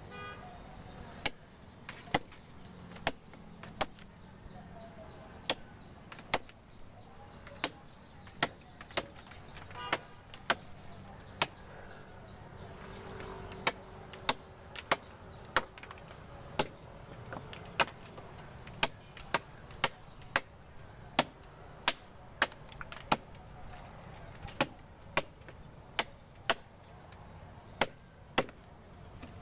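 Repeated sharp knocks of a hand tool striking the sugar palm's fruit-bunch stalk, irregular at about one or two a second, as the tapper works the stalk to get the sap flowing.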